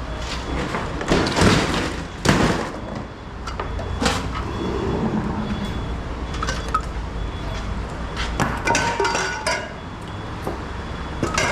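Scrap metal being handled and dropped: a handful of separate clanks and clatters over a steady low rumble.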